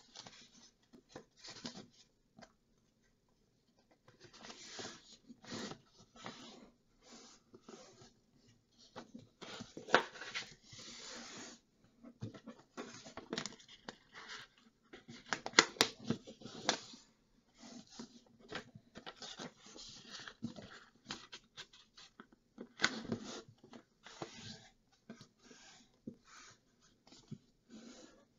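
A sheet of paper being folded and creased by hand on a countertop: irregular rustling and crinkling as fingers press and run along the folds, with a few sharper crackles, the loudest about ten and sixteen seconds in.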